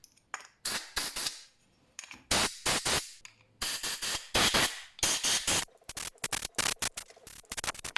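Compressed air from a blow gun hissing in a series of bursts, blowing out motorcycle carburetor parts after they were washed in petrol. Several bursts last about half a second, and near the end come quicker short puffs.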